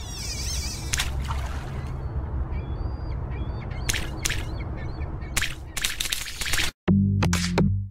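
Nature and water sound effects: a steady low rumble with trickling, crackling water sounds and a few short bird calls. About a second before the end it cuts out briefly and an electronic music jingle begins.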